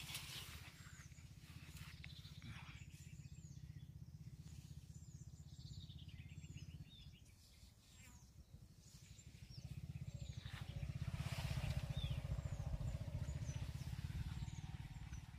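Open-field ambience: wind rumbling on the microphone, stronger in the second half, with a bird repeating a short high chirp about once a second.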